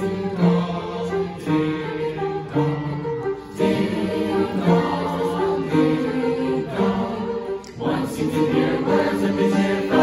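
Mixed school choir singing in harmony, sustained chords in phrases that break briefly about every four seconds.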